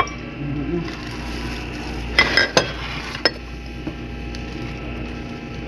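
Dishes and utensils clinking as food is handled, with a quick cluster of clicks about two seconds in and one more a second later, over a steady low hum.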